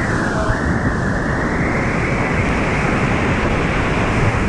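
Steady rushing of a Citywave standing-wave surf pool: water pumped continuously over the ramp and breaking into a stationary wave, heard close up.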